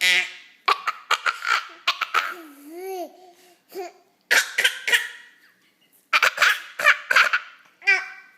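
An eight-month-old baby's fake laughter: short breathy bursts of laughing with gaps between them, and one rising-and-falling voiced sound about three seconds in.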